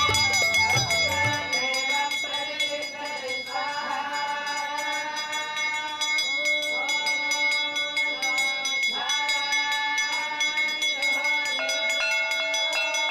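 A group of voices singing in long held phrases, each lasting one to two seconds and starting with a slide in pitch, over a steady high tone. Low drumming stops about a second and a half in.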